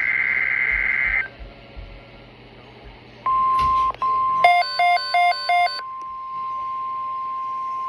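NOAA Weather Radio emergency alert signalling: the end of a screeching SAME data burst, then after a short pause the steady 1050 Hz warning alarm tone that signals a watch or warning is coming, with about five quick electronic beeps from the receiver over it near the middle.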